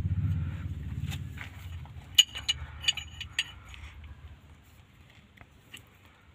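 Steel ring spanner clinking against the nut and fitting of an excavator swing motor's gear-oil pipe as the nut is worked loose: about four sharp metallic clinks with a brief ring, between two and three and a half seconds in, over a low rumble that fades away early on.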